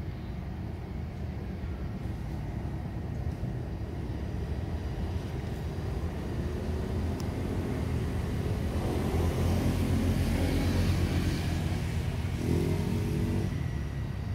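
A motor vehicle passing by: a low engine rumble that builds to its loudest about ten seconds in, with a brief shifting engine tone before it fades.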